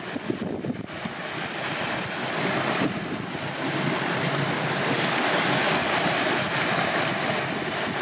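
Wind buffeting the microphone over small sea waves lapping and washing at the shoreline, swelling a little midway.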